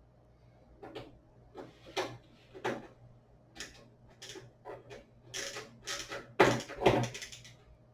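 Small clicks and knocks from screwdriver and screws working on a motherboard in a metal computer case, about a dozen irregular strikes, the loudest two close together near the end.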